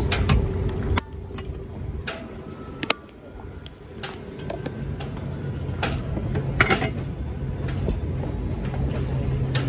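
Metal clicks and knocks of a wrench working the bolt and lock nut on an anchor fitting while it is being tightened. Under them runs a steady low hum that drops away about a second in and returns about halfway through.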